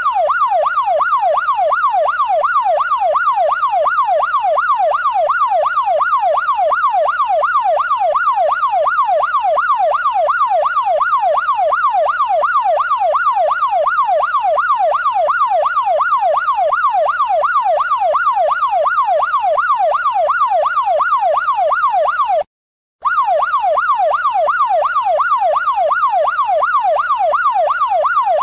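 Police siren in yelp mode: a fast up-and-down sweep, about three times a second, repeating steadily. It cuts out for about half a second a little over 22 seconds in, then resumes.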